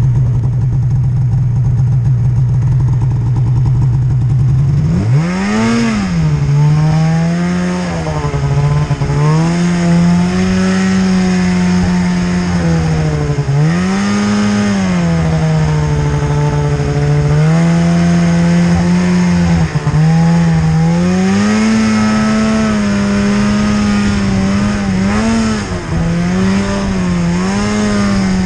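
Snowmobile engine idling steadily, then revving up about five seconds in and running under changing throttle as the sled rides through deep snow, its pitch rising and falling again and again.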